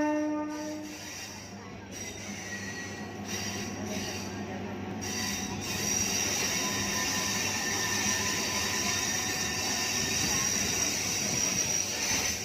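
Freight train wagons rolling past on the rails, a steady rumble with high-pitched wheel squeal that grows louder from about six seconds in. A horn note stops about a second in.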